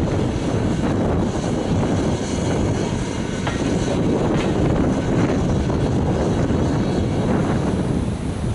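Passenger coaches rolling past on the rails, a steady rumble of wheels on the track that fades near the end as the last coach goes by.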